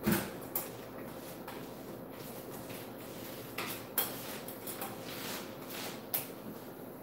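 Light clatter of painting gear being handled as a paint roller is readied, with a few sharp clicks and knocks scattered through.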